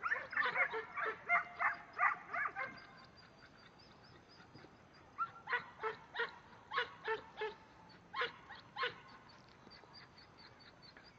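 Herding dog barking at cattle it is driving: a quick run of barks in the first few seconds, then, after a short pause, about nine more barks spaced a little apart.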